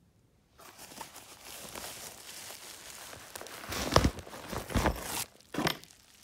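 Rustling of a fabric carrying bag and crinkling of plastic bubble wrap as they are handled, with a few louder bumps and scrapes about four to five and a half seconds in.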